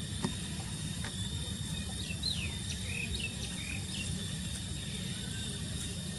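Outdoor ambience: a steady high insect drone over a low background rumble, with a short run of high chirps between about two and three and a half seconds in.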